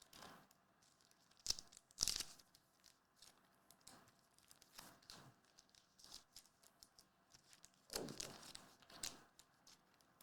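Trading-card pack wrapper being torn open and crinkled, with sharp rips about one and a half and two seconds in, lighter crinkling between, and more ripping near the end.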